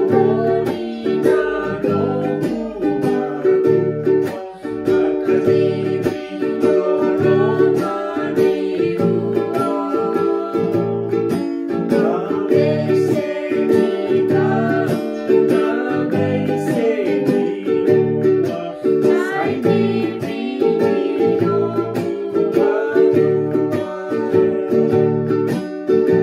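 Ukulele strummed in a steady rhythm, with a young voice singing a Fijian song over it.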